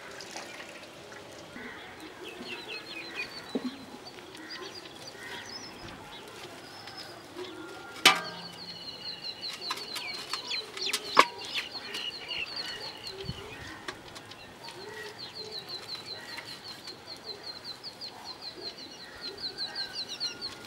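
Birds calling outdoors: runs of rapid, high, repeated chirps, steady through the second half. Two sharp knocks, the loudest sounds, come about eight and eleven seconds in.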